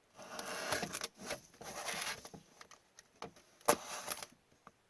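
Cardboard hockey-card hobby box being opened by hand: two scraping, tearing passes of about a second each, then light handling clicks and one sharp knock nearly four seconds in.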